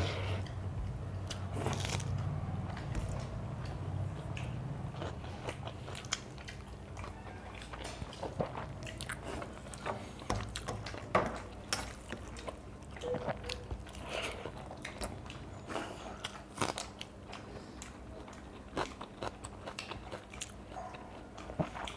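Close-up eating sounds: chewing and biting with irregular crunches and small wet clicks, from people eating panta bhat, water-soaked rice, by hand with fried sides.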